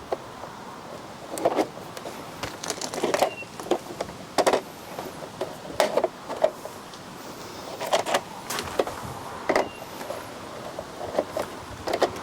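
Hydroponic growing channels being set one after another into the fittings of a salad table frame: a series of knocks and clatters every second or two.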